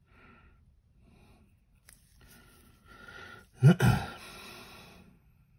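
A man with a head cold drawing breath, then sneezing loudly about three and a half seconds in: a sharp double burst with a hiss trailing off.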